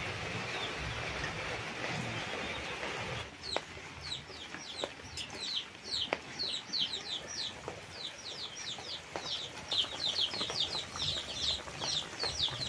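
Curry bubbling and sizzling in a wok over a wood fire for about three seconds. Then, after a cut, high bird chirping takes over: many short falling notes, several a second, with a few light knocks.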